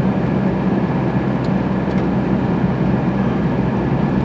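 Steady road and engine noise heard from inside a moving car's cabin, a constant low rumble.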